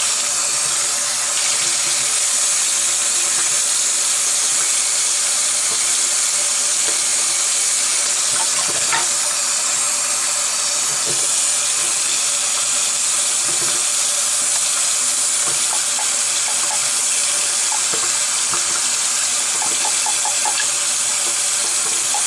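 Bathroom sink tap running steadily, the stream splashing over the plastic parts of a hang-on-back aquarium filter as they are rinsed and scrubbed with a brush. A few faint clicks sound through it.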